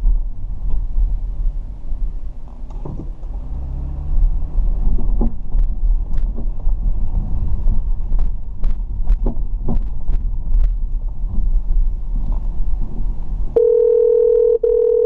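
Car driving, a steady low rumble with scattered short knocks. Near the end a steady electronic tone sounds for about two seconds, with a brief break partway through.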